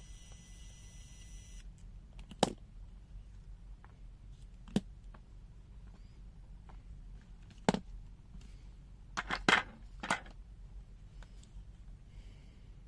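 Sharp clicks and knocks from the plastic case of a handheld digital multimeter being handled and taken apart: single clicks spread apart, then a short cluster a little past the middle.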